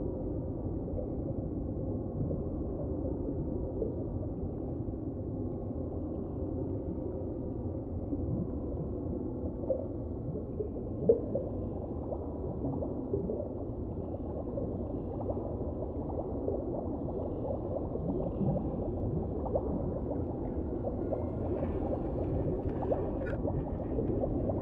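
Muffled underwater noise through a waterproof camera housing: a steady low rush with faint gurgling, a few small knocks about ten to eleven seconds in, and light crackling near the end.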